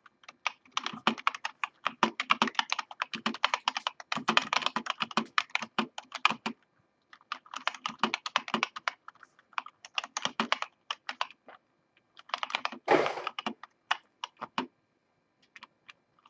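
Typing on an Azolt G Reformer half-mechanical keyboard: fast runs of keystrokes broken by short pauses, with one louder thump a few seconds before the end. It thins out to a few single key presses at the end.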